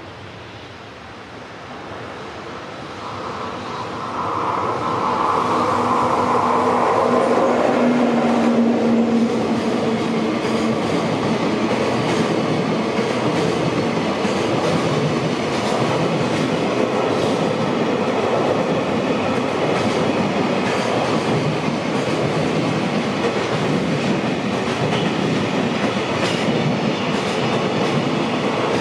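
JR Freight container train passing close by, hauled by an electric locomotive: the rumble grows over the first few seconds and the locomotive goes by with a steady hum, then the container wagons run past with a steady clatter of wheels on the rails.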